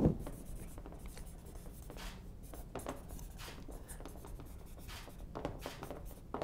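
Pen writing a signature on a poster board: a run of short, faint scratching strokes, with a brief knock right at the start.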